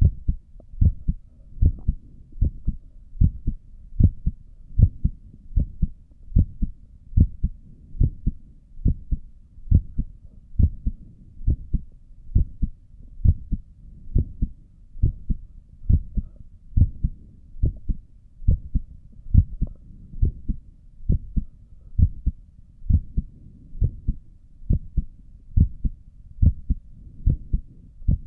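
A human heartbeat heard through a stethoscope at rest: a steady rhythm of low paired thumps, the lub-dub of the heart valves closing.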